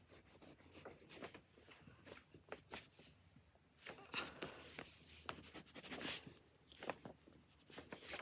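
Pencil writing on paper: faint, irregular scratching strokes, busiest about halfway through.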